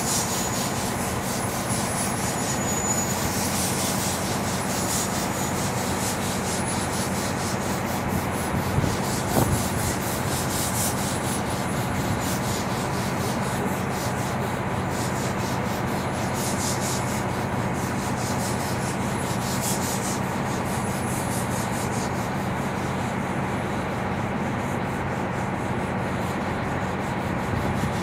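Mount Washington Cog Railway steam train moving away down the mountain, a steady rough clatter and rush of the locomotive and its rack-and-pinion running gear. The high-pitched crackle thins out over the last few seconds as the train recedes into the fog.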